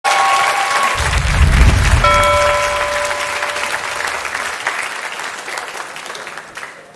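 Studio audience applauding and cheering, fading away steadily, with a low rumble about a second in and a short held tone at about two seconds.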